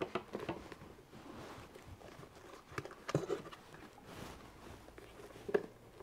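Quiet handling of a plastic washing machine soap dispenser box, with a few soft plastic clicks as its clips are pressed down around the edge.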